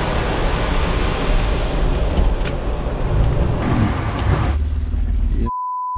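A BMW sedan being drifted through a bend: a dense rush of engine and tyre noise, heaviest in the lows. About five and a half seconds in it cuts off and a steady censor beep takes over.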